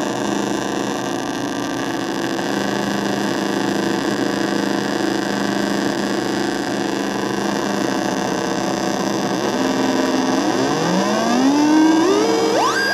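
Circuit-bent electronic noise box giving out a dense, buzzing drone of many tones at once. From about ten seconds in, its pitch sweeps steeply upward in several rising glides.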